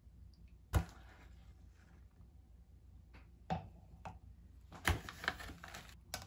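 Kitchen handling sounds: a sharp knock about a second in, then a knock and a run of taps and clicks near the end as a wooden spoon adds powder to a plastic BlenderBottle shaker cup.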